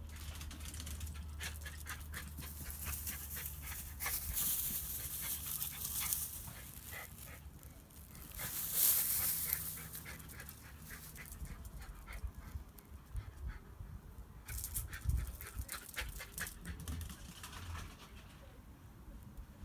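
West Highland White Terrier racing about on a dry-grass lawn: quick rustling and patter of paws through the grass with dog panting, and a louder rush about halfway through.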